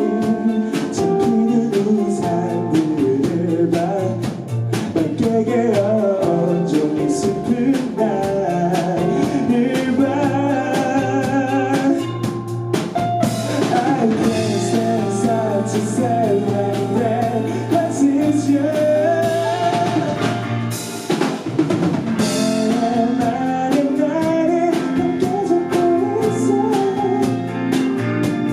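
Band music in a stretch without recognised lyrics: drum kit keeping the beat under guitar, with a melodic lead line weaving over it.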